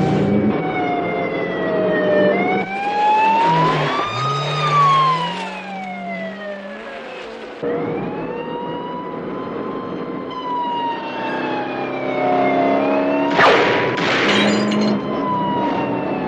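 Police car siren wailing in long, slow rises and falls over a running truck engine and road noise during a chase. There are a few sharp knocks near the end.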